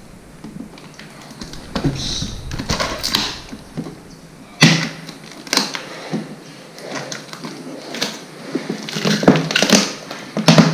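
Packing tape being torn and peeled off a plastic basket crate, with rustling and sharp knocks of the hard plastic crate and its lid. The loudest knock comes a little under halfway through, and another clatter comes near the end as the lattice lid is opened.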